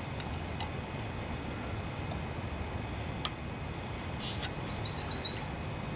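A long steel screwdriver working against the brass float tab of a small-engine carburetor, giving one sharp metallic click a little over three seconds in and a few faint ticks, over steady low background noise. A bird chirps faintly and high a few times in the second half.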